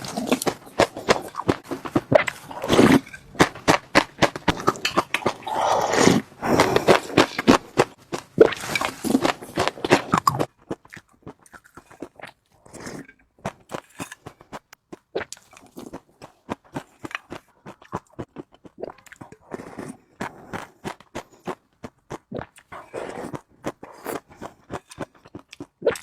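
A person eating close to the microphone, with crisp crunching and wet chewing clicks. The crunching is dense and loud for the first ten seconds or so, then thins to sparser, quieter chewing sounds.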